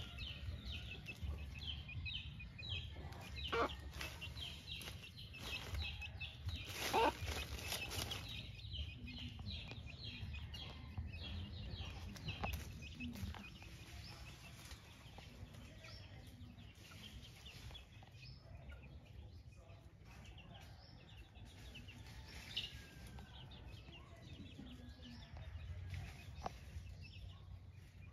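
A brood of White Kelso gamefowl chicks peeping, many short high cheeps a second, busiest in the first half and thinning out later, with a mother hen's occasional low clucks.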